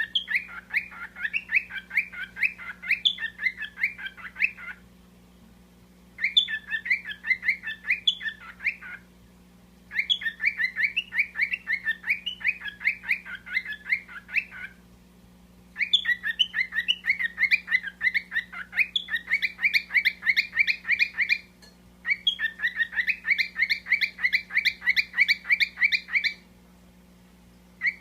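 Parrots chattering in long runs of rapid, repeated chirps, several seconds each, broken by short pauses.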